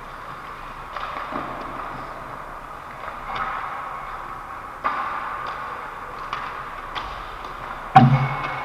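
Ice hockey play: skate blades on ice, with sharp clacks of sticks and pucks every second or two. A loud knock with a low ring near the end.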